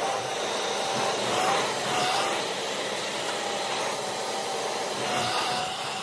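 Dyson ball upright vacuum cleaner running as it is pushed over carpet: a steady rush of air with a constant high whine.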